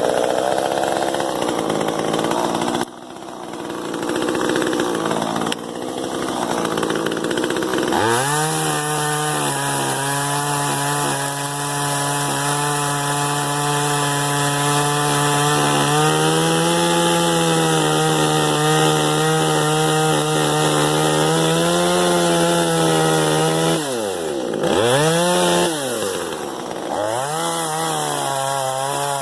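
Small two-stroke top-handle chainsaw running at high revs while cutting brush and small logs. The engine note is rough at first, then steady and high. Near the end it drops toward idle twice and revs back up.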